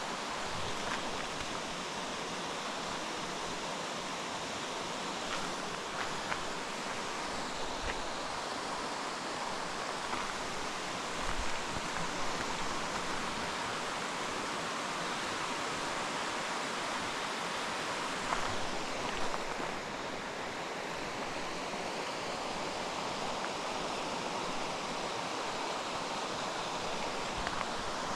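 Steady, even rushing noise outdoors, with a few faint ticks here and there.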